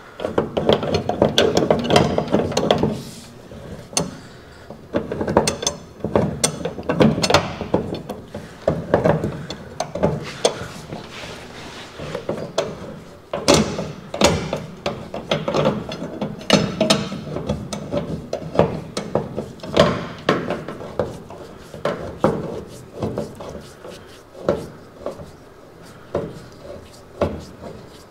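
Hand ratchet wrench clicking in quick runs, with irregular knocks and clanks of metal parts being handled; the sharpest knocks come about 13 and 20 seconds in.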